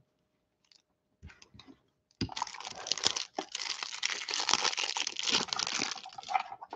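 Clear plastic wrapper of a trading-card hanger pack being torn open and crinkled by hand. It starts about two seconds in, after a few faint clicks, and continues as a dense crackling until just before the end.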